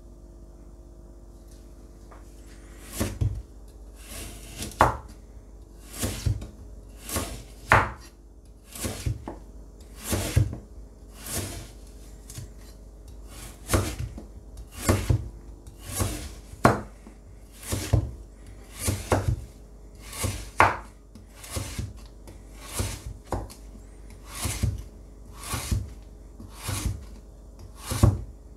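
Tojiro nakiri knife slicing a raw carrot into thin rounds. Each stroke is a crisp cut ending in a knock on the cutting board, at a steady pace of about one a second, starting about three seconds in.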